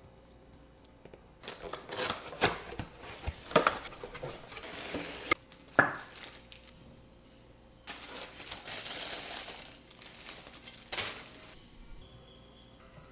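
Packaging rustling and crinkling while the metal parts of a couscous steamer pot are handled, with a run of sharp clinks and knocks in the first half and a longer stretch of rustling later on.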